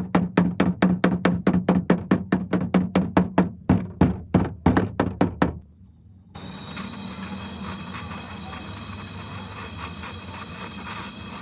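Rapid hammer blows on metal, about four a second, over a steady low hum; they stop about halfway through. After a short pause comes a steady hiss with a thin high whine.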